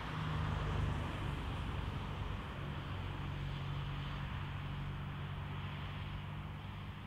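Irish Rail 071 class diesel locomotive's EMD 12-645 two-stroke V12 engine working steadily, a low drone, while hauling a ballast hopper train.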